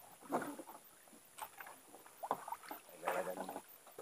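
Water slapping against the hull of a small fishing boat in short, scattered splashes.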